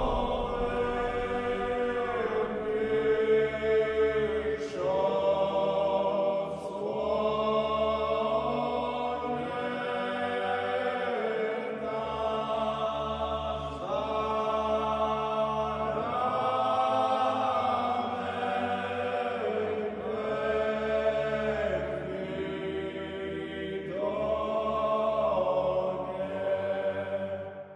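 Choral chant music: several voices holding long notes that change every two seconds or so, stopping just at the end.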